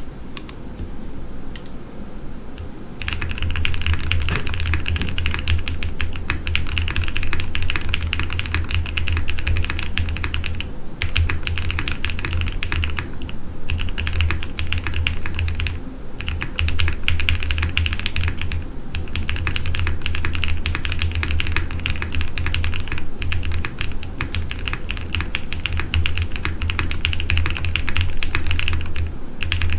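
Typing on a Geonworks F2-84 mechanical keyboard with Cow linear switches (UHMWPE stems) on a POM plate, with PCB and case foam and EBPT keycaps: a fast, continuous run of keystrokes, starting about three seconds in, with a few brief pauses.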